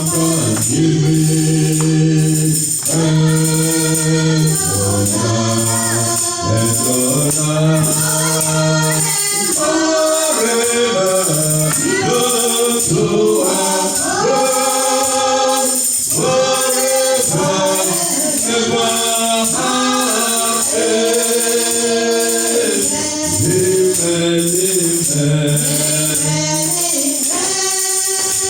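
Gospel choir singing with tambourine keeping a steady beat.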